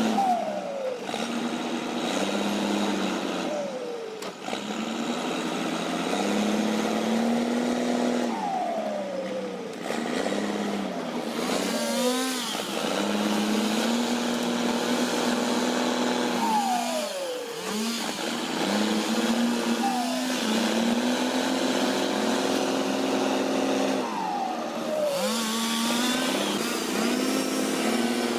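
A motor running steadily, with a whine that falls in pitch again and again, every few seconds, as the load changes.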